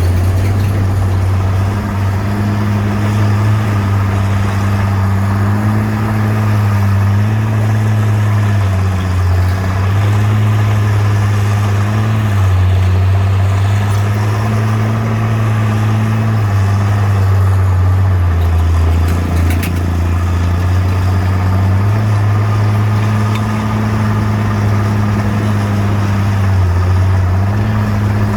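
Bulldozer's diesel engine running steadily, its pitch stepping up and down every few seconds as the load changes.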